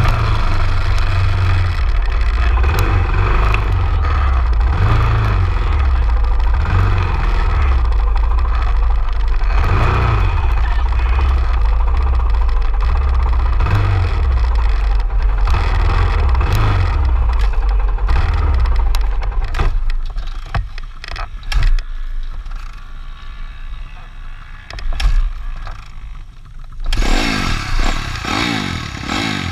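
Wind buffeting the microphone with a heavy, uneven rumble for most of the clip, then quieter with a few knocks as the stalled dirt bike is handled. Near the end the dirt bike's engine suddenly catches and starts running.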